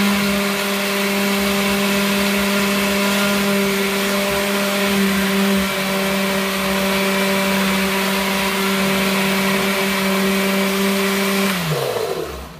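Countertop blender motor running steadily, grinding soaked dried chiles with their soaking water into a purée. About twelve seconds in it is switched off and the motor winds down, its hum falling in pitch before it stops.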